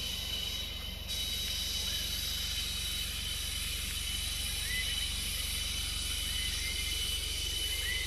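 Tropical forest insects keep up a steady high-pitched drone and hiss, with a low steady hum beneath. Short bird chirps come a couple of times in the second half.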